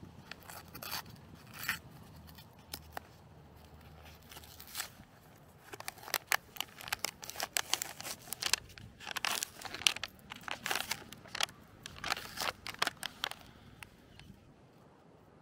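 Plastic sandwich packaging being torn open and crinkled: a few scattered crackles at first, then a dense run of sharp crinkles and rips for about eight seconds.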